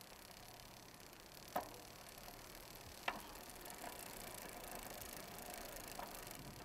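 Faint hiss with a few sharp, unevenly spaced ticks, the two loudest about a second and a half in and about three seconds in.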